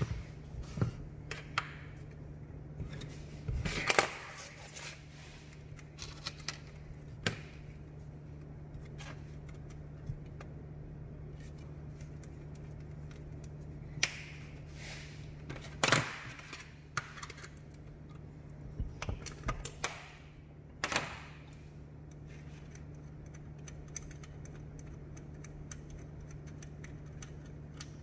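Scattered metal clicks and clanks of a wrench on the bolts of a Garrett GT17 turbo's cast-iron turbine housing and of tools and parts on a steel bench, as the housing is unbolted and worked loose. A steady low hum runs underneath.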